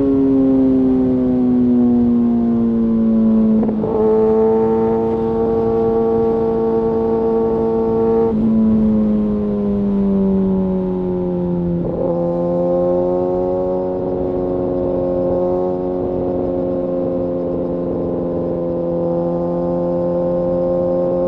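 Kawasaki ZX-6R sportbike's inline-four engine running under way, heard from the rider's seat. Its note eases down slowly, with brief breaks and pitch shifts about 4, 8 and 12 seconds in, and then holds steady.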